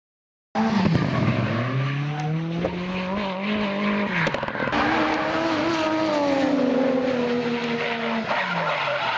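Drift car engine at high revs with tyres squealing as the car slides. The engine note climbs over the first few seconds, drops sharply about four seconds in, picks up again, then falls away near the end; it starts after a brief moment of dead silence.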